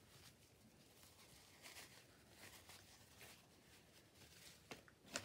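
Near silence, with faint, brief rubbing sounds of a cloth wiping ink off a glass craft mat, a few strokes scattered through.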